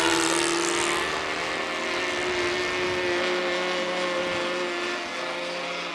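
Radio-controlled model aeroplane's motor and propeller droning overhead in one steady pitched note. The note slides down a little at the start, then holds while it slowly grows fainter.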